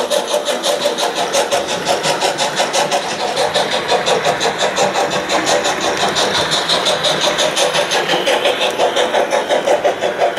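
Gauge 0 model steam locomotive running at steady speed, with an even chuffing beat of about five pulses a second over a hiss.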